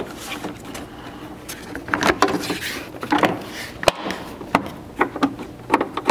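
Plastic interior trim panel of a Lexus GX 550's rear cargo opening being pressed in by hand, its clips snapping into place in a series of sharp clicks and knocks, with some rubbing of plastic in between.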